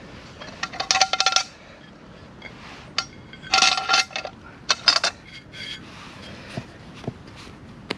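Metal camp cookware clinking and rattling in three short bouts, each with a bright ringing tone.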